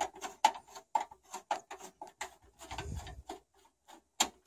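Screwdriver turning out a screw from a PC case's graphics-card bracket: a run of irregular small clicks and ticks of metal on metal, with a soft handling bump about three seconds in.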